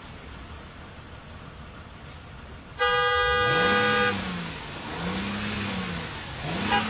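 A vehicle horn sounds one long steady blast of about a second and a half, starting suddenly about three seconds in over a steady rushing background. Right at the end, quick short beeps of the horn begin.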